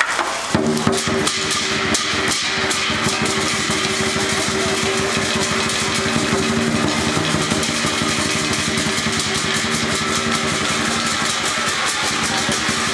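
Chinese lion dance band of drum, cymbals and gong playing fast, dense, continuous beating, starting about half a second in.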